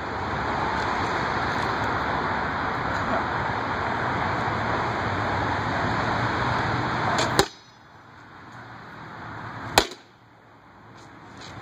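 A steady rushing noise runs for about seven seconds and cuts off abruptly with a click. About ten seconds in comes a single sharp, loud crack of a weapon striking a wooden round shield.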